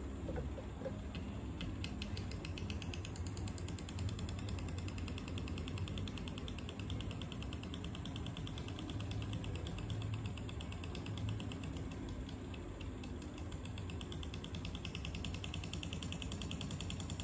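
Small DC micro motor of a homemade model plane running and spinning its propeller: a steady hum with a rapid, even clicking that sets in about two seconds in.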